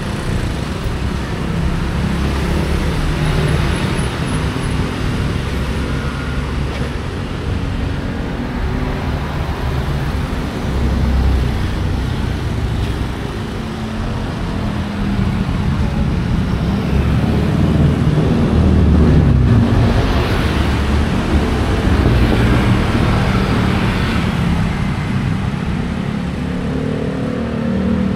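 City street traffic: motor vehicles running and passing close by without a break, one of them passing louder about two-thirds of the way through, its engine note dropping as it goes by.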